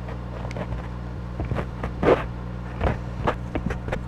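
A few light clicks and knocks from handling small tools and parts of an HO-scale model locomotive, the loudest about two seconds in, over a steady low hum.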